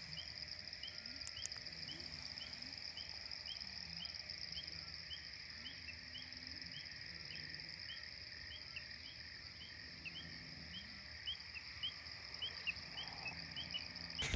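Insect chorus: a steady high drone with a short chirp repeating about twice a second, and faint low calls underneath.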